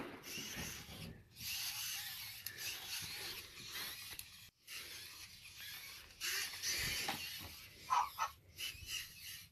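Dalmatian Robopet robot dog's geared leg motors running, a rasping, ratchet-like mechanical whirr that comes in bouts with short pauses between movements.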